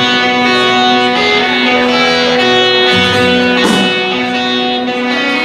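Live rock band playing with electric and acoustic guitars, sustained ringing guitar notes changing every second or so. Lower notes join about three seconds in.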